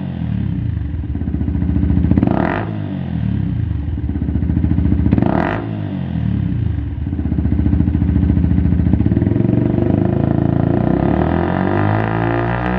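Yamaha YZF-R125's single-cylinder four-stroke engine running through a Lextek GP1 aftermarket silencer. The throttle is blipped twice, about two and five seconds in, then the revs are held higher for several seconds and drop back toward idle near the end.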